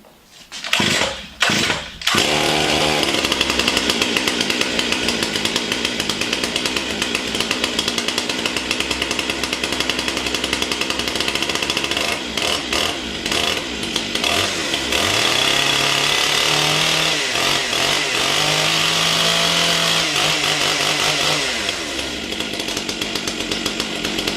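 Stihl MS 661 two-stroke chainsaw pull-started after being refuelled from an empty tank: two quick pulls, then it catches about two seconds in and keeps running, its engine speed rising and falling a few times past the middle.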